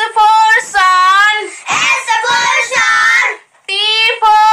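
A child's high-pitched voice chanting alphabet words in a sing-song, phrase after phrase, with a short gap about three and a half seconds in.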